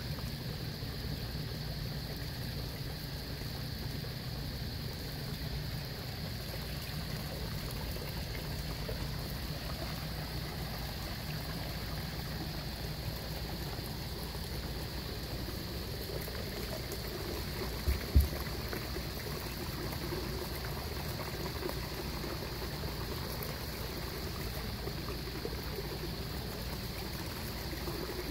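Water pouring steadily from a PVC pipe spillway into a koi pond, an even splashing trickle over a constant low rumble. A brief double thump about two-thirds of the way through.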